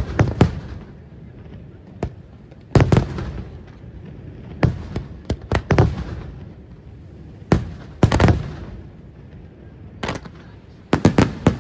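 Aerial firework shells bursting overhead: about a dozen sharp bangs, each trailing off in an echoing rumble, several coming in quick runs of two or three.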